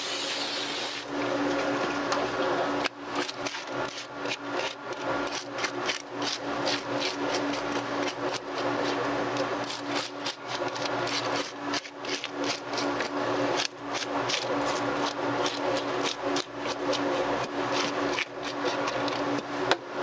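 Rapid, irregular scraping strokes of a blade working over a red sea bream, starting about a second in, over a steady low hum.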